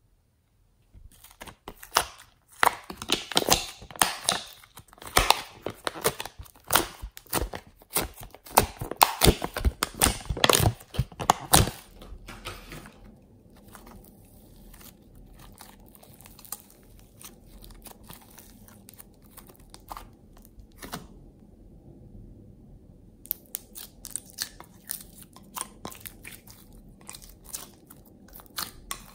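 A thin plastic tray of molded clay pieces crinkling and crackling as the pieces are pushed out of it: a dense run of crackles lasting about ten seconds. After that come softer sticky squishing of clay and slime worked by hand, and a few scattered crackles again near the end.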